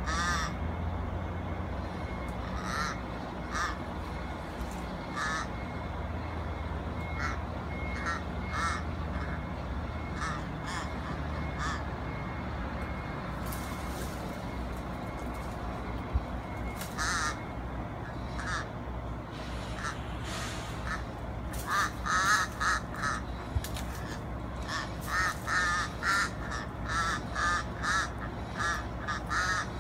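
Crow cawing: short, harsh calls come now and then at first, then in a quick run of several caws a second over the last eight seconds.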